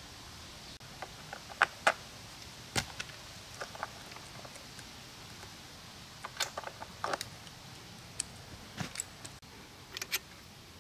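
Scattered sharp metallic clicks and clinks of chainsaw parts being handled as the bar, chain and clutch drum come off a Poulan chainsaw to replace its worn-out drive sprocket. The loudest come in a pair about two seconds in, with clusters of smaller clinks around six to seven seconds and near the end.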